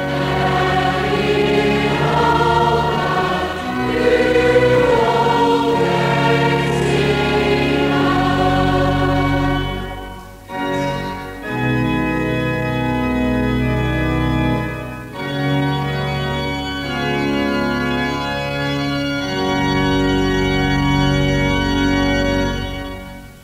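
A congregation singing a psalm in the slow, non-rhythmic Dutch style, with long held notes, accompanied by a church organ. There is a short break about ten seconds in, then long sustained chords that die away just before the end.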